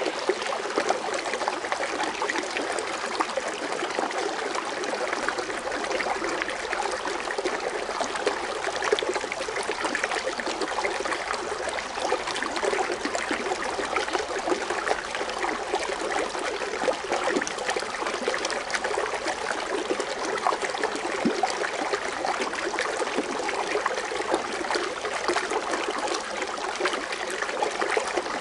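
Water fountain splashing and trickling steadily with a fine, fizzy crackle of foaming water.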